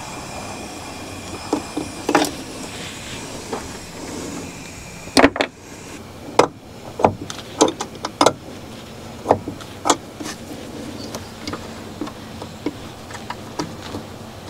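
A wrench working air-brake line fittings loose on a semi-truck: irregular sharp metal clicks and clinks, roughly one every second or so, over a steady low background.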